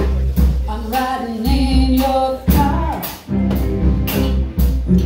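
Live band playing: a woman singing lead over electric guitars, bass and a drum kit, with regular cymbal and drum strikes keeping a steady beat.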